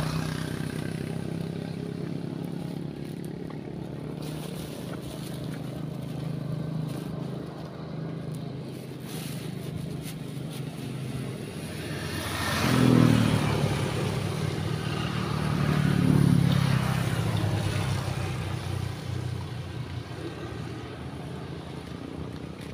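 A motor vehicle engine running steadily at low revs, then two vehicles passing close by, swelling and fading, the first about 13 seconds in and the second about 16 seconds in.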